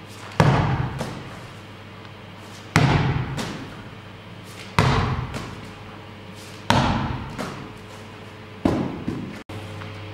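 A medicine ball thrown with a shot-put-style push from the chest, hitting hard five times about two seconds apart. Each heavy thud is followed by a couple of smaller bounces and a fading echo.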